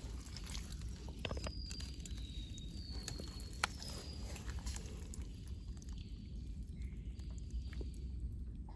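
Wet mangrove mud squelching and sucking as an arm digs down into a crab burrow, with scattered sharp clicks.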